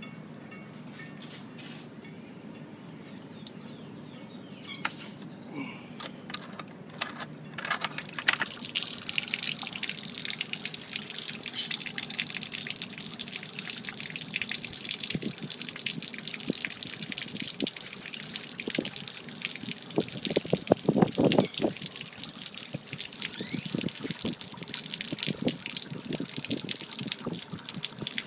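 Water pouring out of a Mako Pro Skiff's open transom drain and splashing onto concrete. The splashing gets louder about eight seconds in, with a few louder knocks around two-thirds of the way. The water had collected in the hull although the live bait well had not been used, which points to a leak.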